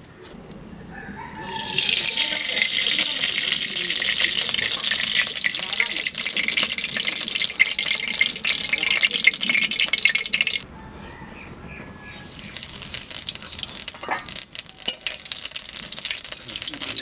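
Oil hissing and crackling in a metal wok heating over a wood fire, loud for several seconds, then cutting off suddenly and coming back more quietly a little later.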